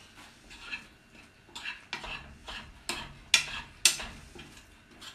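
A spoon stirring and scraping a cream sauce in a frying pan: a run of short scrapes and clinks against the pan, the sharpest a little past the middle.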